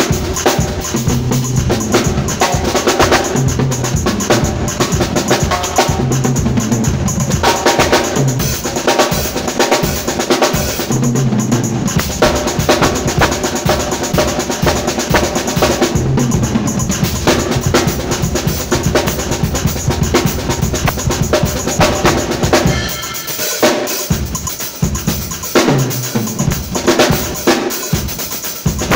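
Live drum kit played by a drummer, bass drum and snare driving a busy groove with cymbals, over held low pitched notes from the band. The low notes drop out briefly a little over twenty seconds in while the drums carry on.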